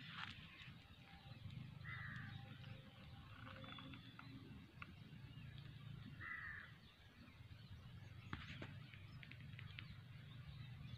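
A crow cawing faintly, twice, about four seconds apart, over a low steady rumble of outdoor ambience.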